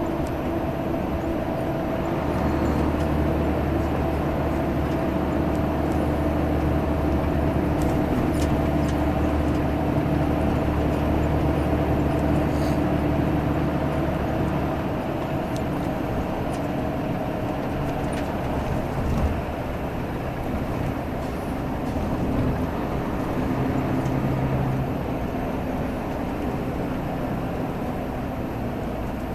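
Diesel engine of Salutaris bus 13500 droning steadily under way, with road noise; the engine note holds for about the first half, then changes and drops back.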